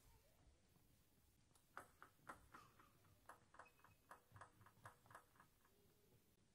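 Table tennis ball bounced repeatedly on the table by the server before serving: a run of about fifteen sharp, lightly ringing ticks, a few a second, starting about two seconds in.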